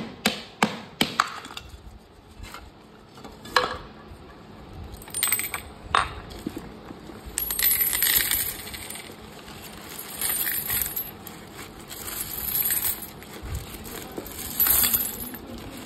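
Terracotta piggy bank being broken open: a quick run of sharp cracks and knocks in the first second or so as pieces of the clay shell come away, and a few more over the next several seconds. Then coins clink and clatter together and paper banknotes rustle as a hand rummages through the money inside.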